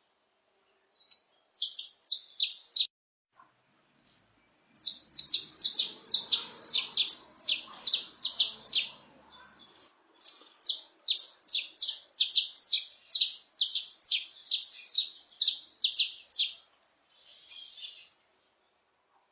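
Male saffron finch singing in phrases of rapid, sharp, high notes: a short phrase about a second in, then two long runs of fast notes, and a faint scratchy bit near the end.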